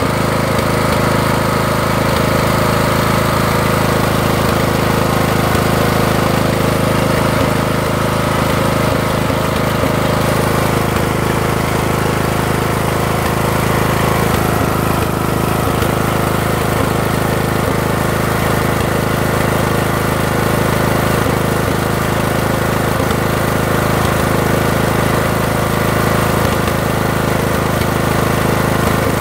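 Briggs & Stratton 18.5 hp OHV riding-mower engine running steadily at a constant speed. The owner says it runs rough.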